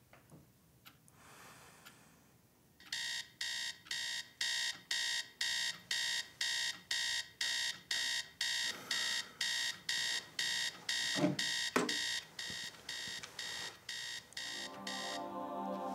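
Small battery alarm clock beeping about twice a second, starting about three seconds in and cutting off near the end.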